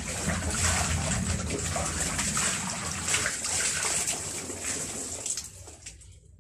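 Laundry being washed by hand in a basin of water: splashing, then water streaming back into the basin as a garment is wrung out, dying away near the end.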